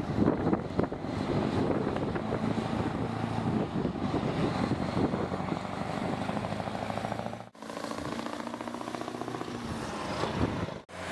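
Heavy haulage truck engines working hard under load, a low steady engine drone with rough rattling over it. The sound cuts off abruptly twice, about two-thirds of the way through and again near the end.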